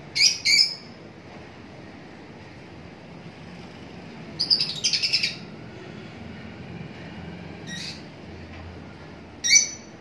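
Lutino peach-faced lovebirds chirping in sharp, high-pitched calls: two quick chirps at the start, a rapid burst of several around the middle, a fainter one later, and one more near the end.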